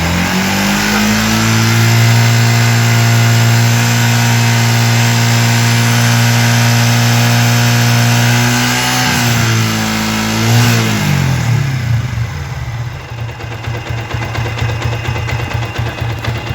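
Yamaha Vixion motorcycle's single-cylinder four-stroke engine revved up and held at steady high revs for several seconds. Near the middle the revs drop, come up once more in a short blip, and then settle back to idle.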